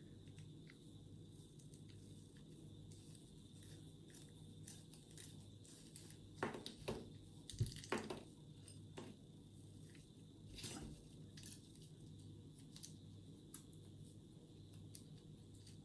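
Light metallic clicks and clinks from a padlock and its core being handled and taken apart: a dozen or so scattered ticks, the sharpest about six and a half seconds in. A low steady hum runs underneath.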